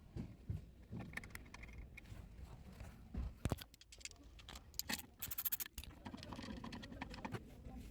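Faint clicks, scrapes and rattles of small metal parts being handled as a mounting bracket is moved from the old fuel pump control module to the new one, with a quick run of clicks about five seconds in.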